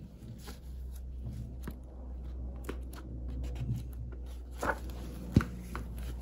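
Pages of an old hardbound book being turned by hand: soft paper rustles and light taps over a steady low hum, with one sharp knock a little over five seconds in.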